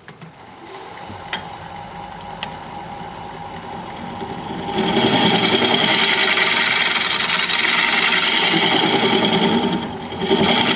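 Wood lathe motor starting and running up to speed, then from about five seconds in a steel scraper cutting the inside of a hard cherry plum bowl: a loud, steady scraping with shavings peeling off, easing for a moment near the end before the cut resumes.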